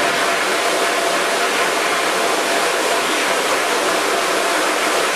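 Steady hiss of water spraying from a hand-held hose nozzle onto a screen-printing screen's mesh, washing out the unexposed photo emulsion to develop the stencil.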